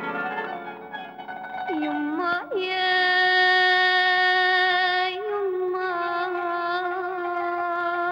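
A woman singing an Arabic song: a short busier phrase, then two long held notes with a slight waver, the first the loudest.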